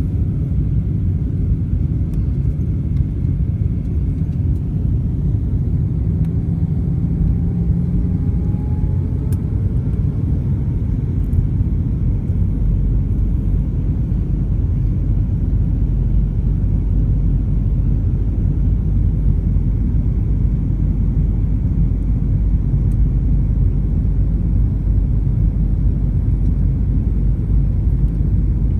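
Steady low rumble of engine and airflow noise heard inside a jet airliner's cabin during descent. A faint rising whine comes in about six to eight seconds in.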